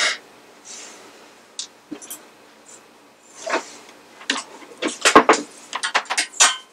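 Tools and small parts clinking and clattering as they are handled on a workbench. A few scattered clicks come first, then a quick run of rattling knocks over the last three seconds.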